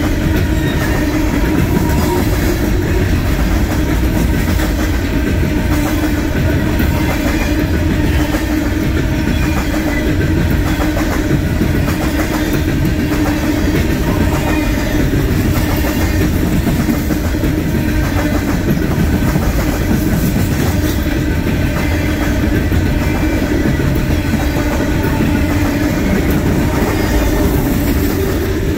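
Freight train's steel coal cars rolling past, wheels clicking steadily over the rail joints over a constant rumble, with a steady tone held throughout.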